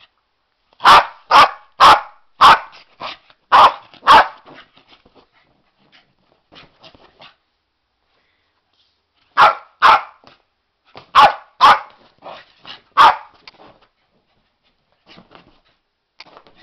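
West Highland White Terrier barking: a quick run of about six sharp, loud barks, softer yaps, a pause of a couple of seconds, then another run of loud barks and a few faint ones near the end.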